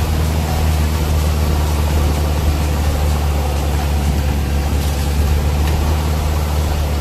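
Off-road vehicle's engine running with a steady low hum, heard from inside the vehicle, over an even rushing noise as it drives through shallow floodwater.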